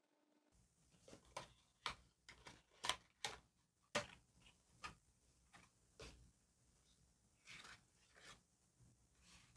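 Faint clicks and taps of paper and stickers being handled during diary decorating: a dozen or so light ticks, closest together between about one and four seconds in, then a few soft paper rustles near the end.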